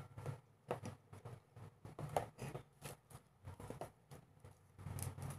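Light, irregular clicks and taps of a small plastic earbuds charging case and its packaging being handled, about a dozen over four seconds, with a low steady hum coming in near the end.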